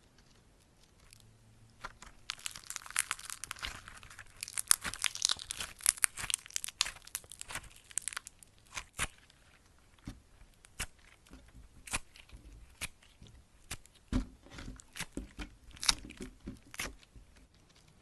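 Mirror putty slime worked by hand, its trapped air bubbles popping: a dense crackling run of pops for several seconds, then scattered single pops.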